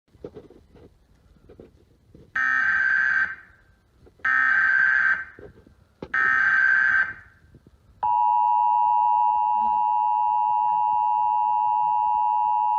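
Emergency Alert System SAME header: three short bursts of warbling data tones about two seconds apart, over faint hiss. About eight seconds in, the steady two-tone attention signal starts and holds.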